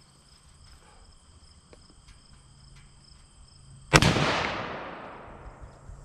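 A single .30-06 rifle shot from a Winchester Model 70 bolt-action, a sharp crack about four seconds in, its report fading out over about two seconds.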